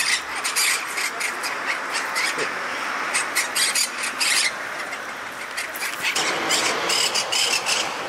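Monk parakeet giving rapid series of harsh, grating squawks, in two bouts: one through the first four and a half seconds, then a short pause, then another near the end.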